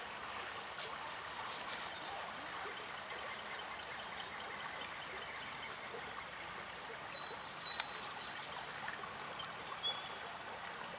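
Steady rush of a shallow stream running over riffles. About seven seconds in, a bird sings a few high notes and then a fast trill.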